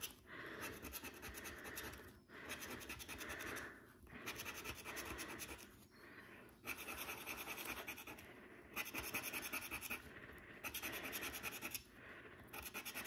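A plastic scratcher tool scraping the latex coating off a scratch card in quick back-and-forth strokes. The scraping comes in spells of one to two seconds with short breaks between them.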